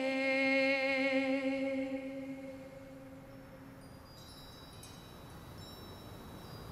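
Soundtrack music: a woman's voice holding one long sung note with vibrato, fading out over about two seconds, then faint high ringing tones.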